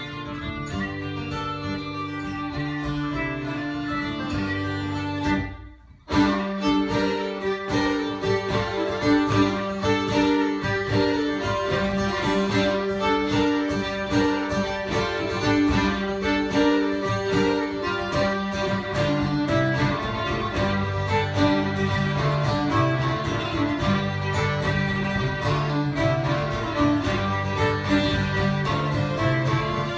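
Two fiddles and an acoustic guitar playing bourrées, a folk dance tune. After held notes over a chord there is a short break about six seconds in, then the tune starts up with a steady, lively rhythm.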